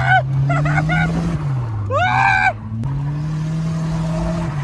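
Turbocharged Nissan D21 Hardbody mini truck's engine pulling hard while drifting, its pitch climbing, dipping about a second in, then climbing again. The tyres squeal at the start and again about two seconds in.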